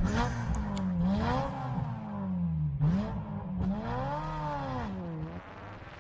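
The closing part of a ringtone: a single pitched sound that swoops up and down in pitch several times, growing fainter as it fades out near the end.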